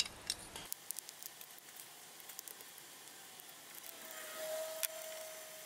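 Faint clicks and light handling of a small screwdriver taking the tiny screws out of an aluminium electronics case, with a faint thin squeak about four seconds in that lasts a second or so.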